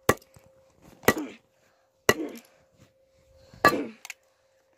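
Hammer striking a toy car on a concrete paving block: four hard blows about a second apart, some ringing briefly after the hit.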